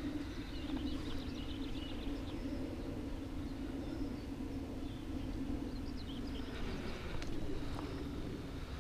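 Outdoor ambience: a steady low drone with a rumble under it, and birds chirping briefly in a quick series about half a second in and again around seven seconds in.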